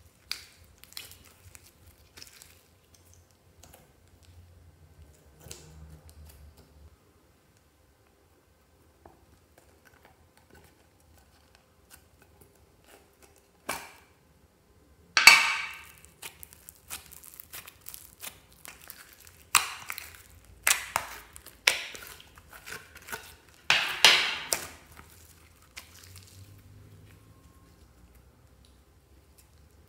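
Slime being handled and pulled from its container over a tray of slime. Soft sticky clicks at first, then from about halfway through a run of loud, short crackling and crinkling sounds in several bursts.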